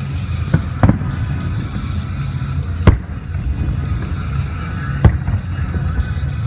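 Aerial fireworks shells bursting: sharp booms about half a second and a second in, the loudest about three seconds in and another near five seconds, over a steady low rumble.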